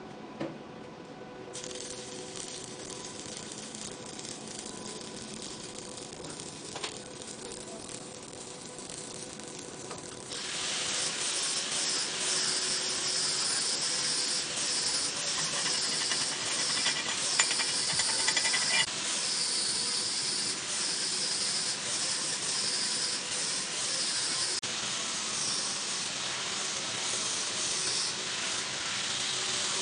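Stick-welding arc hissing and crackling steadily as a coated electrode burns on a vertical (3G) weld; the crackle gets much louder about ten seconds in.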